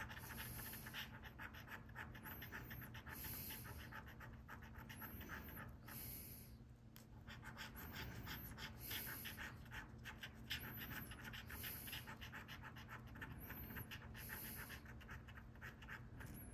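A coin scratching the coating off a scratch-off lottery ticket in quick, repeated back-and-forth strokes, faint, with a short pause a little before the middle.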